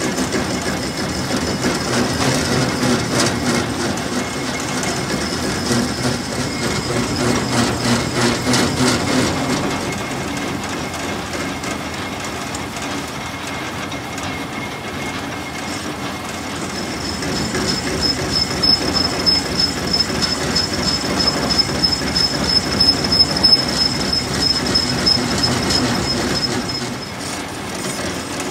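Metal lathe turning a large metal flange while a cutting tool in the toolpost cuts at its bore: a steady grinding, scraping cut over the running machine, louder in two spells, with a thin high squeal from the tool from a little past halfway until near the end.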